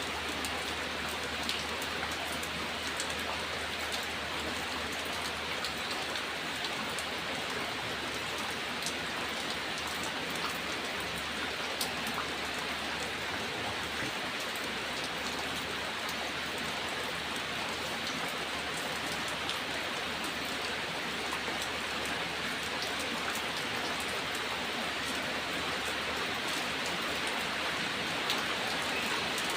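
Steady rain falling, with individual drops ticking here and there on a hard surface.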